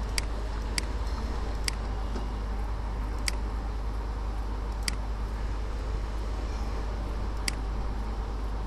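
Computer mouse clicking six times at irregular intervals, each a short sharp click, over a steady low hum and hiss of microphone and room noise.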